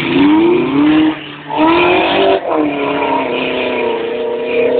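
Off-road 4x4's engine revving hard, its pitch rising and falling, easing off briefly about a second in and again about two and a half seconds in.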